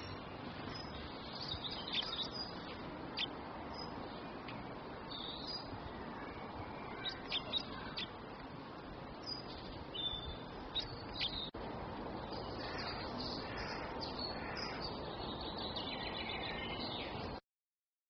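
Small songbirds chirping, with scattered short high calls over a steady background noise; the sound cuts off abruptly near the end.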